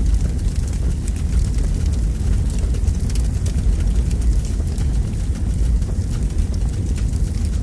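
Wind buffeting a phone's microphone: a steady, loud low rumble with scattered faint crackles.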